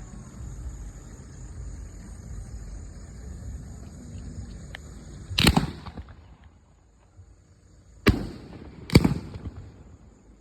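A 7-shot cake of 3-inch fireworks shells (LF Fireworks 'Star Tracker') firing: three loud booms, the first about halfway through and two more close together near the end, each with a short echo tail.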